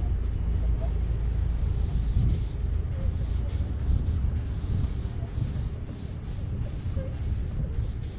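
Aerosol spray-paint can hissing as paint is sprayed, the hiss broken by many brief pauses, over a steady low rumble.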